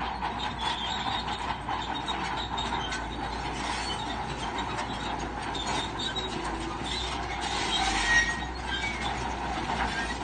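Crawler bulldozer working, its diesel running under steady clanking and squeaking from the steel tracks, with a brief squeal near the end.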